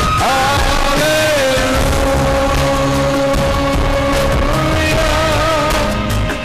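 Live worship song: a voice holding long, slightly wavering notes over instrumental backing.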